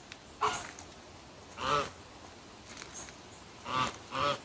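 Goose honking: four short honks, the last two close together near the end.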